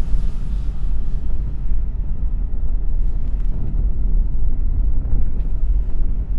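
Single-cylinder Briggs & Stratton engine, fitted with a clear acrylic head and running on propane, making a deep, steady rumble.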